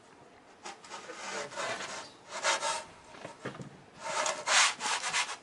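Hand rubbing flour over a metal pizza peel and the peel scraping across a marble tabletop: several scraping strokes, the longest and loudest about four seconds in.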